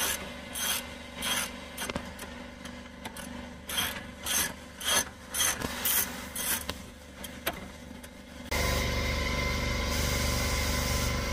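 A 1/2-inch-drive hand ratchet worked back and forth on a brake caliper bracket bolt: repeated rasping pawl clicks, a stroke about every half second, for roughly seven seconds. A little over eight seconds in, a steady mechanical running noise starts abruptly.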